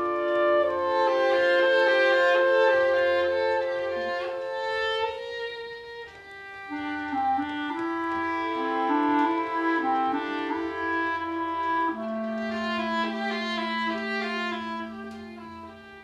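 Live chamber-folk ensemble playing an instrumental passage with no singing: clarinets and violin in long held notes over cello. A low note is held from about twelve seconds in.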